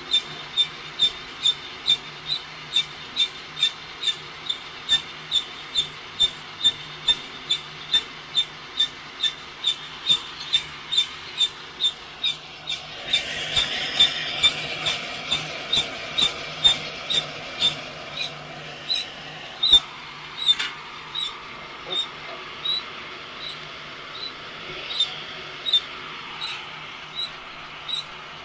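Drill-driven flour-sifter drum of a heat gun coffee roaster squeaking once per turn, a regular metallic squeak about one and a half times a second that slows a little in the second half, over the steady blowing of the heat gun. The blowing grows louder for a few seconds around the middle.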